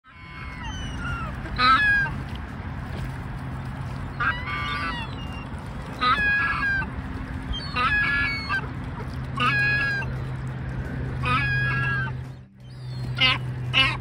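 A young gull calling over and over, one loud call about every two seconds, with two calls close together near the end. A steady low hum runs underneath.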